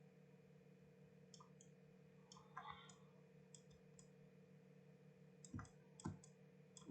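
Faint, scattered clicking from computer input while working at a desk, over a steady low electrical hum, with two soft thumps near the end.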